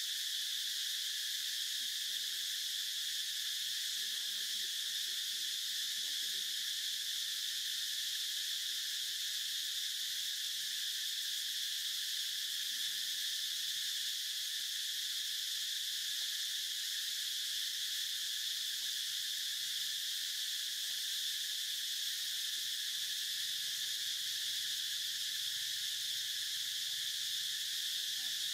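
Steady chorus of insects: a dense, unbroken high-pitched drone of several layered pitches that never lets up.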